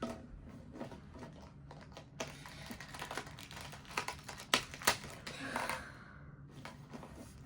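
Plastic pieces of a 2x2 Rubik's cube clicking and snapping as the cube is handled and its pieces pushed back together: irregular sharp clicks, the loudest a few together about four to five seconds in.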